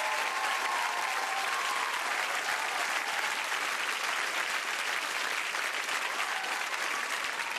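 Large audience applauding: dense, steady clapping from many people.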